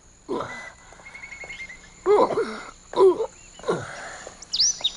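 A man's wordless vocal sounds, four loud grunts and calls that bend in pitch, as he carries heavy wine jars on a shoulder pole up stone steps. A bird chirps in a quick trill about a second in and gives a high whistle near the end.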